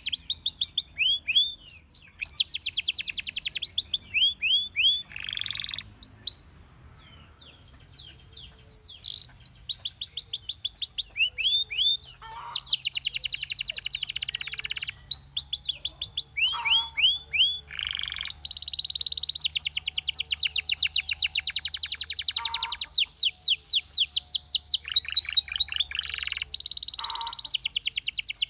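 Belgian canary singing: long, very fast trills and runs of quick rising notes, broken by a pause of about three seconds roughly a quarter of the way in.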